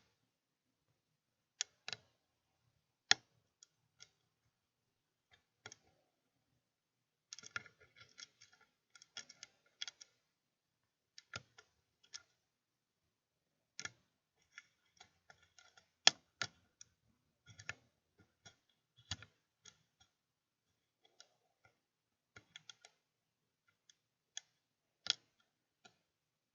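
Irregular light metallic clicks and ticks of a lock pick and tension wrench working the pins of a Master Lock 141 pin-tumbler padlock held in a vise, coming in short flurries with pauses between.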